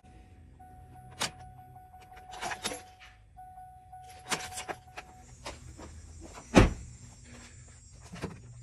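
Truck's electric fuel pump priming with a steady whine, twice in a row, about two seconds each, as the ignition key is cycled on to pressurise the fuel system. Light clicks from the key and switches, and a single loud thunk about two-thirds of the way through.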